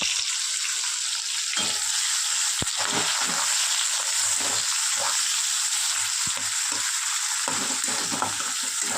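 Onions frying in hot oil in a pan, a steady sizzle, stirred now and then with irregular scraping strokes.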